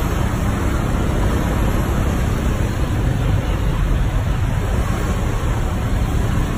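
Wind buffeting the microphone of a moving motorcycle taxi, mixed with motorcycle and street traffic noise: a steady, even low rush with no breaks.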